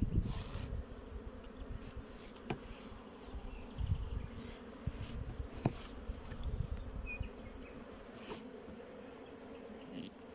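Many honeybees buzzing in flight: a steady hum, with a few light clicks and knocks from handling.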